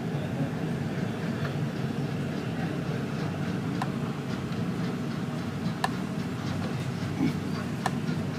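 Passenger train running, heard from inside the carriage: a steady low rumble with three sharp clicks about two seconds apart in the second half.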